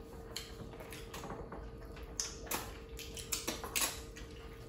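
Eating sounds: scattered soft clicks and smacks of chewing and of fingers working pounded yam and pumpkin leaf soup on the plates, over a faint steady hum.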